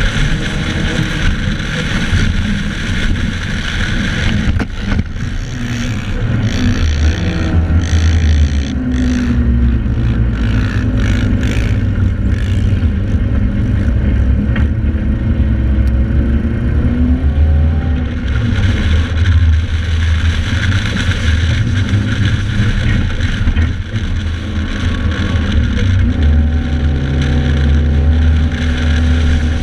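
Joyner 1100 Sand Viper dune buggy's engine running under load, heard from on board, with the revs rising and falling as it drives over the sand.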